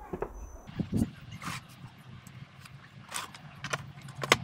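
Pieces of wooden board being handled and set down on a workbench: several irregular light knocks and clatters, the sharpest near the end.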